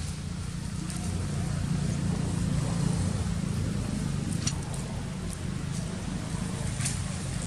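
Steady low motor rumble, with a few faint clicks.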